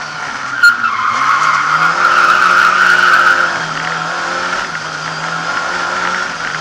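Lada 2101 rally car heard from inside the cabin, its engine running hard and its tyres squealing through a slide. A sharp knock comes about half a second in. The engine revs dip and climb again just after it, and the tyre squeal is loudest for a second or so in the middle.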